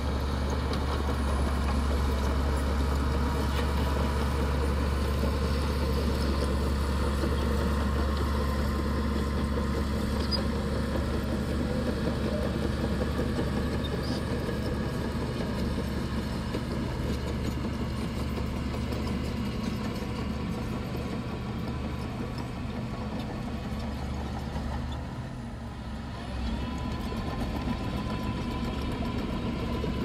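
Small crawler bulldozer's diesel engine running steadily under load as the dozer pushes a heap of wet mud. The engine sound dips briefly near the end, then picks up again.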